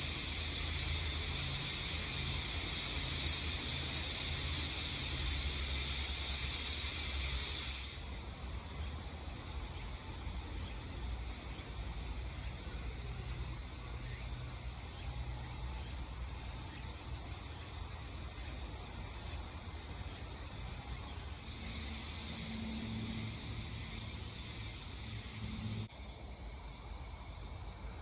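Steady high-pitched buzzing of a summer insect chorus in woodland, shifting abruptly in pitch and loudness about 8, 21 and 26 seconds in.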